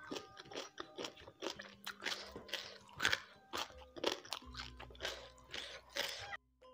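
A person chewing crisp food, crunching about twice a second, the crunches stopping suddenly near the end. Faint background music runs underneath.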